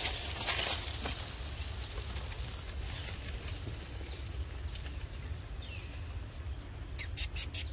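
Outdoor ambience: a steady high-pitched insect drone over a low wind rumble, with a few rustles at the start and a quick run of four or five sharp clicks near the end.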